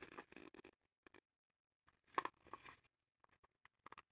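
Faint rustling and light clicks as a plastic action figure and its cape are handled and pulled apart. The sounds come in short bursts, with a pause of about a second early on.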